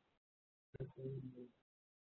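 Mostly quiet, with a click about three-quarters of a second in, followed by a brief low murmur from a man's voice lasting under a second.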